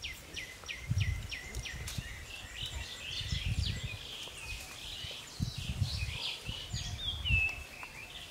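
Birds chirping in short repeated notes, a quick run of them at the start, with several low muffled thumps in between.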